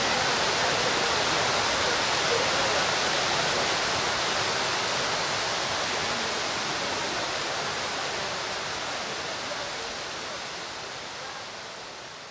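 Large sculpted fountain's water falling from its raised bowl into the pool below, a steady rush of splashing water that fades out gradually over the second half.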